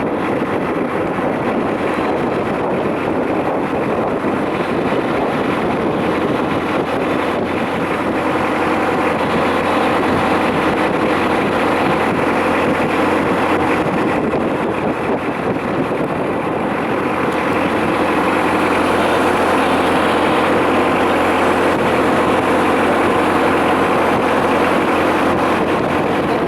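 Boat engine running steadily while under way, with wind rushing over the microphone.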